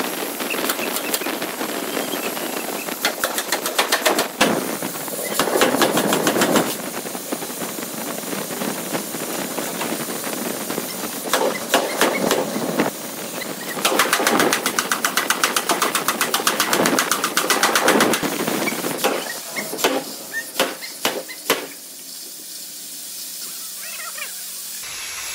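Power forging hammer striking hot steel in rapid runs of blows, several seconds at a time, over steady workshop machinery noise.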